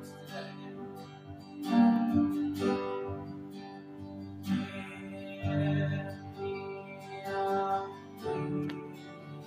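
Acoustic guitar strumming chords with a keyboard playing along: live worship music that cuts in suddenly from silence.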